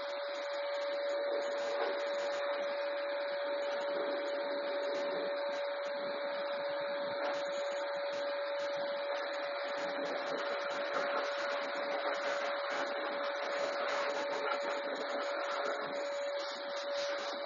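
Vacuum cleaner running steadily, its motor giving a constant whine over a rushing hiss, while it cleans out the car after the sound system has been removed.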